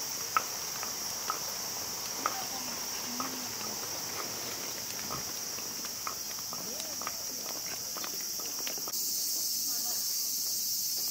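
Steady high-pitched chorus of insects, with footsteps about once a second and faint voices of people nearby. About nine seconds in, the insect sound jumps louder and the footsteps stop.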